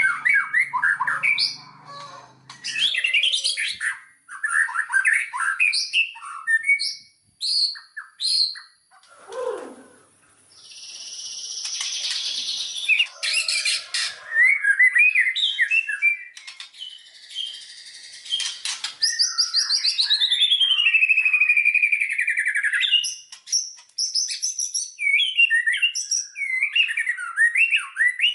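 White-rumped shama singing a loud, varied song of quick whistled phrases. A harsh buzzing note comes about eleven seconds in, and a long falling trill about twenty seconds in.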